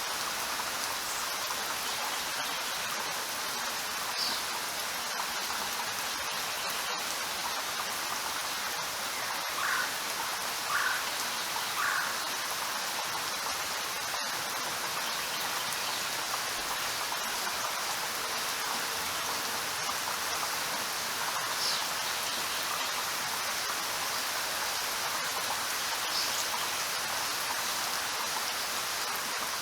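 Steady rain falling, an even hiss with no thunder. Around ten seconds in, three short louder sounds stand out briefly above the rain.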